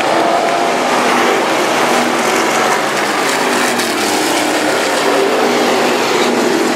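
A field of IMCA stock cars racing on a dirt oval, several V8 engines running hard together in a loud, steady din with a rough, rattly edge.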